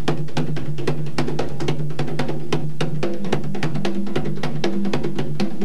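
A pair of conga drums played by hand in a fast, even rhythm of sharp strokes.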